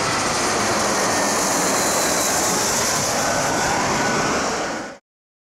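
Jet airliner flying low overhead: steady engine noise with a high whine, cut off suddenly about five seconds in.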